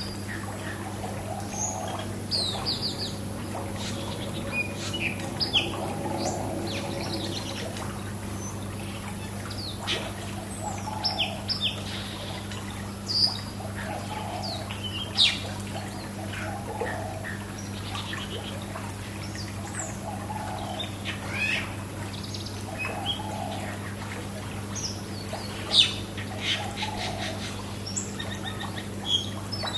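Small birds chirping in many short, high calls, scattered irregularly, over the steady splash and trickle of water from a swimming pool. A steady low hum runs underneath.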